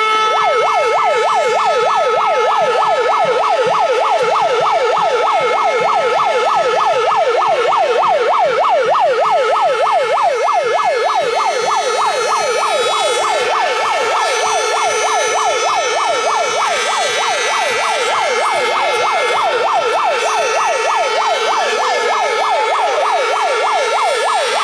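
Electronic siren from a handheld megaphone, its tone sweeping rapidly up and down several times a second without a break. It is loud and continuous.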